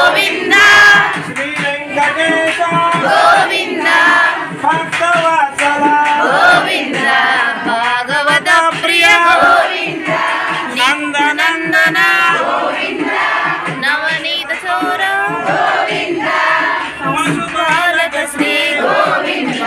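Several voices singing together as a group, with many pitched lines overlapping and running on without a break.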